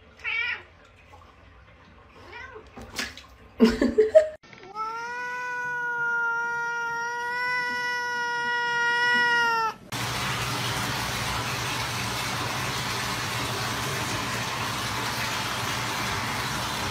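A domestic cat's long, drawn-out meow held on one steady pitch for about five seconds, cutting off abruptly; a few short faint sounds come before it. After it comes a steady background hiss.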